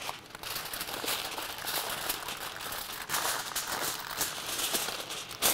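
Aluminium foil crinkling and rustling as gloved hands fold it and press it tight around a pork shoulder, with one sharper crinkle near the end.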